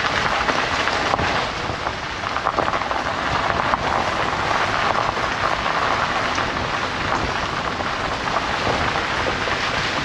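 Suzuki Every kei van driving up a wet gravel forest road: a steady rush of tyre and road noise with dense small crackles of gravel and water.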